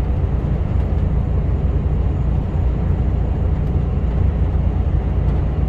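Mercedes Actros HGV heard from inside the cab at motorway cruising speed: a steady low drone of engine and road noise.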